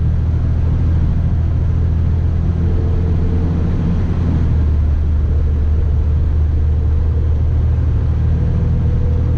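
Steady low drone of a Manitex 50128 boom truck's diesel engine and road noise at highway cruising speed, heard from inside the cab. A faint higher whine comes and goes over it.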